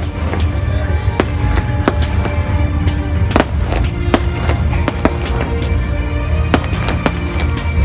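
Fireworks going off: a rapid, irregular series of sharp bangs and cracks, over music with held notes and a heavy low rumble.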